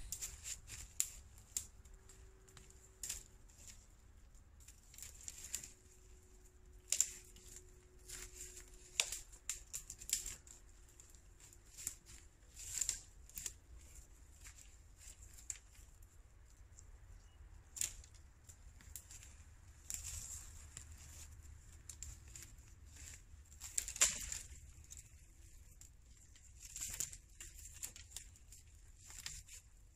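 Dry dead twigs and small branches snapping and crackling at irregular intervals as they are broken off by hand to gather fire fuel. The loudest snap comes about 24 seconds in.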